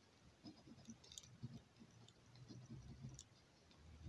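Faint scraping and clicking of a coin rubbing the coating off a scratch card.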